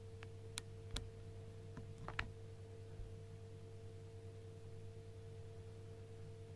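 Quiet room tone with a steady low electrical hum, and a few short sharp clicks in the first two or so seconds.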